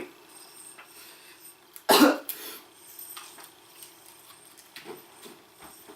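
A man coughs once, sharply, about two seconds in, his throat burning from eating Carolina Reaper chili peppers.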